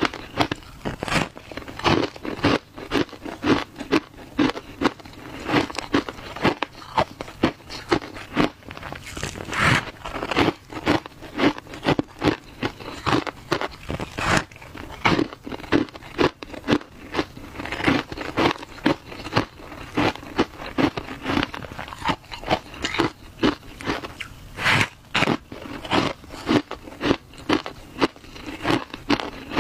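A person biting and chewing a frozen block of shaved ice coated in matcha powder: a steady run of sharp, icy crunches, roughly two a second.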